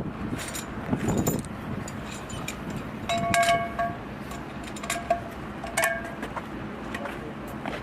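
Hard objects clinking and knocking together. Three of the knocks, a few seconds in, ring on briefly with a clear bell-like tone, as struck metal or glass does.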